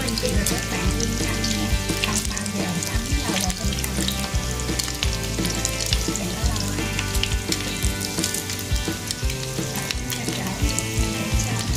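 Mini bread rolls deep-frying in a pan of hot oil: a steady crackling sizzle, heard over background music.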